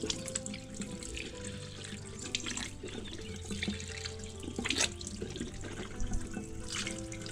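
Water running from a tap into a sink, with irregular splashes of someone washing their face, over steady background music.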